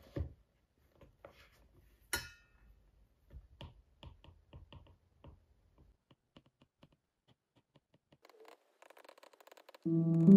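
Light clicks and taps of a stylus and fingertips on a tablet's glass screen, with a sharper click and a brief ring about two seconds in. Piano music comes in near the end.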